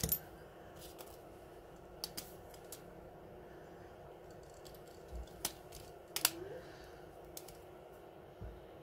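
Scattered sharp plastic clicks and taps from a Samsung Galaxy A50's screen and frame being handled and pressed together, the loudest near the start and about six seconds in, over a faint steady hum.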